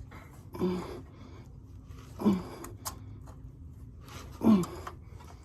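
A man's short strained grunts, about four of them, each falling in pitch, with a small sharp click between them: effort while hand-tightening a new oil filter.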